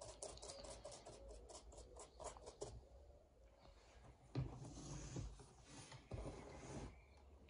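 Faint scratchy dabbing of a thin paintbrush on cardboard. Later comes a soft knock and rustling as the cardboard-box castle is handled.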